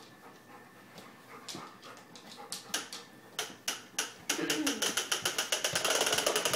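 Plastic push-walker toy clicking as it rolls across a hardwood floor. The clicks come faster until they merge into a quick, even rattle as it gets going. There is a short whine-like cry about two-thirds of the way through.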